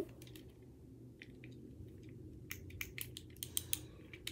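Fidget cube being fiddled with in the hand: a scatter of small, faint clicks from its buttons and switch, most of them in the second half.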